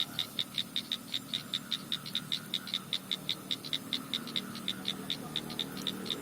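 A small night animal calling in a rapid, even train of short high chirps, about five a second.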